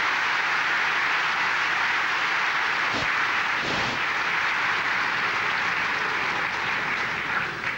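Large audience applauding steadily, dying down near the end.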